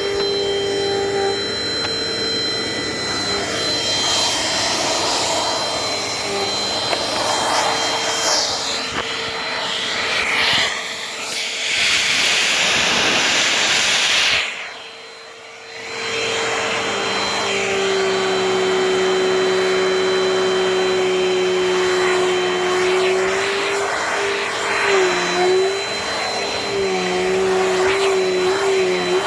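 Dirt Devil Dynamite Plus handheld vacuum running steadily as it cleans crumbs off a couch cushion, a motor whine over rushing air. The sound drops away briefly about fifteen seconds in and returns, and its pitch wavers near the end.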